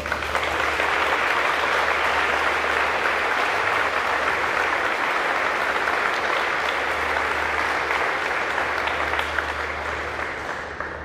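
Audience applauding. It starts suddenly, holds steady, and fades out near the end.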